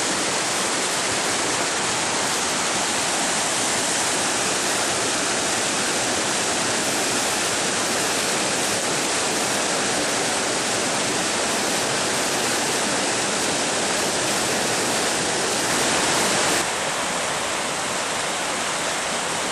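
Rushing white water of river rapids, a steady loud noise. About three-quarters of the way through it drops a little and loses some of its low rumble.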